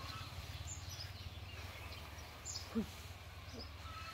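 Faint bird calls: a short high chirp repeated about every two seconds, over a low steady hum.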